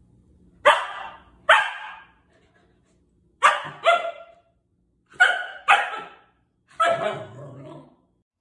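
A dog barking in play: three quick pairs of sharp barks, then a longer single bark near the end.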